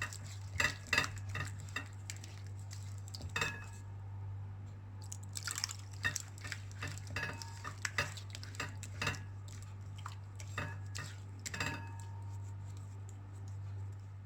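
A spoon stirring thick flour batter in a bowl, with irregular clinks of the spoon against the bowl's side over a steady low hum.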